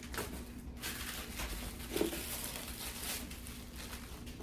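Faint rustling and a few soft knocks from handling the plastic ice cream pint containers, over a low steady hum.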